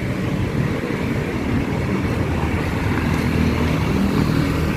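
Steady hum of street traffic, with the low drone of nearby vehicle engines running.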